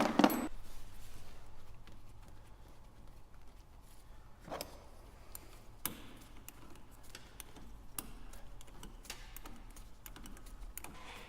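Scattered light clicks and taps of hand tools on metal while the negative battery cable is reattached to its terminal, with a sharper knock right at the start.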